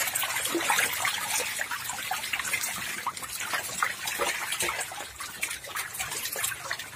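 Water splashing and churning as a crowded mass of climbing perch thrash at the surface: a dense, irregular patter of many small splashes.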